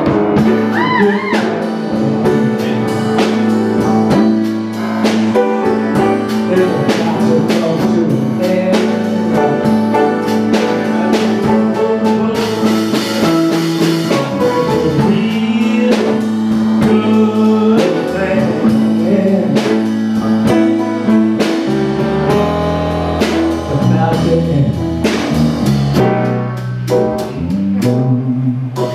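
Live blues band playing, with an electric bass guitar under a lead line carried through a hand-held vocal microphone.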